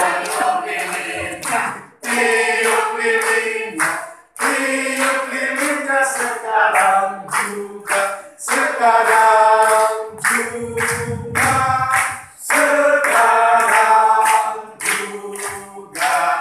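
A group of people singing together, a man's voice leading through a microphone, with long held notes.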